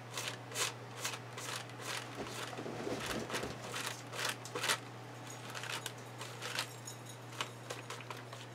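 Quick, uneven paintbrush strokes brushing and scraping across a paper art-journal page, a few strokes a second, over a steady low hum.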